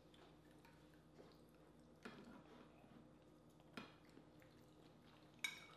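Faint eating sounds: a fork working spicy noodles on a plate and noodles being slurped, with a few short wet clicks, the sharpest near the end.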